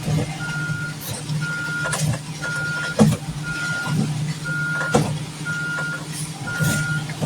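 Concrete truck's backup alarm beeping steadily, about once a second, over the steady hum of its diesel engine as it pours. Several sharp knocks sound through it, the loudest about three seconds in.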